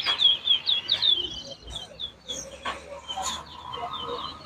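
Twa-twa (large-billed seed finch) singing: quick runs of short, high, downward-slurred whistled notes, several a second, with a pause in the middle before the song picks up again.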